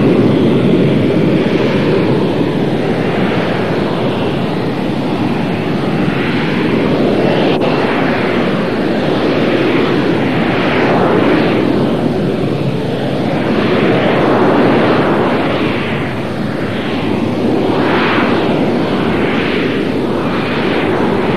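Jet noise from a Sea Harrier's Rolls-Royce Pegasus vectored-thrust turbofan as the aircraft hovers and manoeuvres on jet lift. The loud, steady rushing sound takes on a tone that sweeps up and down again and again from about halfway through as the aircraft shifts position.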